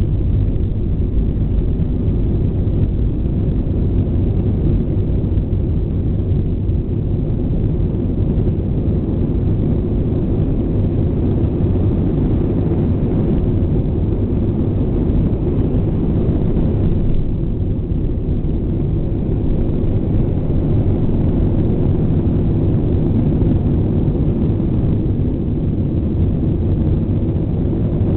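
Airbus A320 jet engines at takeoff thrust, heard from inside the passenger cabin during the takeoff roll: a loud, steady, deep rumble.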